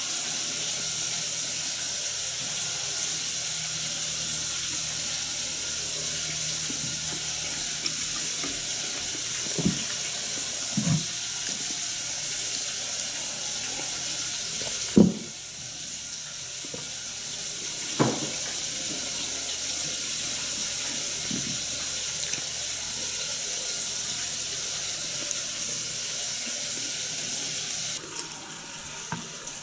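A steady hissing noise with a few short soft knocks. It drops in level about halfway through and again near the end.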